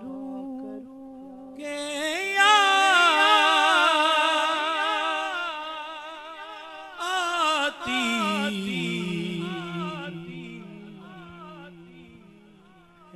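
A man's solo voice singing a naat (Urdu devotional song) into a handheld microphone. It starts on a low held note, climbs about two seconds in into a loud, high, ornamented phrase with a wavering pitch, then after about eight seconds slides back down to a low held note and fades.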